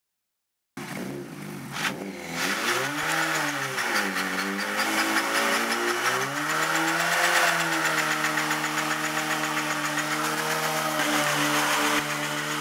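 Honda CBR1000RR's inline-four engine held at high revs for a burnout, the rear tyre spinning against the ground with a loud hiss. The engine starts just under a second in, the revs rise and fall twice, then stay steady.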